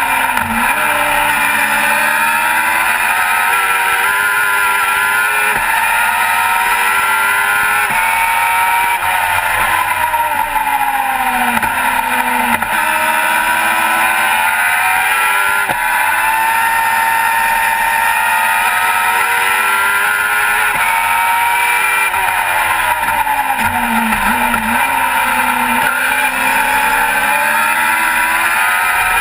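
Onboard sound of a Global GT Light sports-prototype race car's engine at racing speed. Its pitch climbs through the revs, then drops sharply again and again at gear changes and lifts for corners, over a steady rush of wind and road noise.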